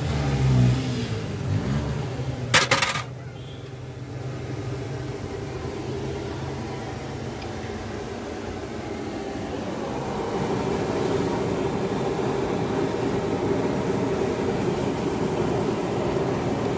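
A metal spatula clattering on a flat steel griddle, a quick cluster of sharp strikes about two and a half seconds in, over steady street noise. A motor can be heard changing speed early on.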